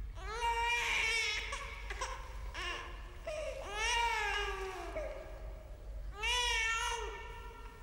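A newborn baby crying in repeated wails. Each wail rises and then falls in pitch, with short breaks between them.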